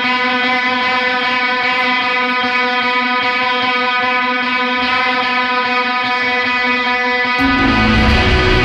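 Electric guitar drone holding one steady pitched tone with a stack of overtones. About seven seconds in, a loud, distorted noise wall with heavy low end breaks in.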